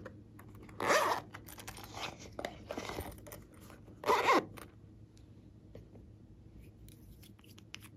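Plastic rasping and scraping as a plastic slime container is handled: two short, loud rasps about three seconds apart, with quieter scraping between them and a few faint clicks near the end.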